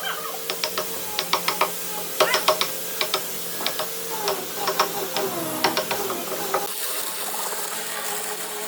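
Irregular runs of sharp mechanical clicks, like a ratchet being worked, that stop about two-thirds of the way through.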